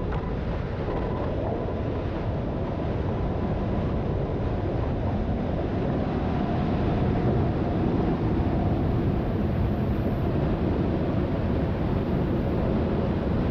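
A steady, even rushing noise, loud and unbroken, with no speech.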